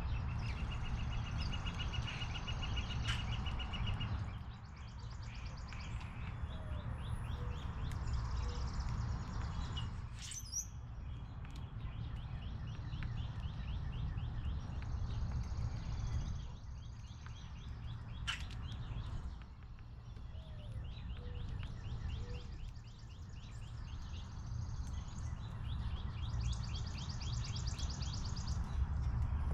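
Songbirds singing outdoors: several rapid trills and strings of quick chirps, one after another, over a steady low rumble, with a few sharp clicks.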